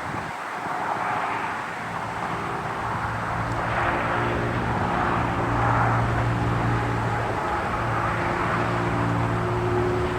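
Federal Signal STH-10 outdoor warning siren coasting down after its alert, its rotor slowed to a low, nearly steady hum of several tones, with a rushing noise that swells and fades.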